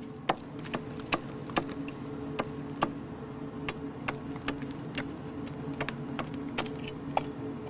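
Hand pick chipping into the soft rock wall of an opal mine, a steady run of sharp strikes about two and a half a second, over a constant low hum.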